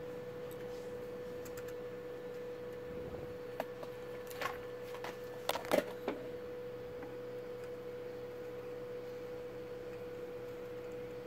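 A steady hum at one pitch, with a few light clicks and taps about halfway through.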